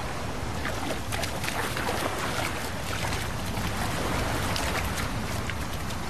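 Sea waves breaking and washing up a beach, with water splashing as a wild boar wades out of the surf onto the sand.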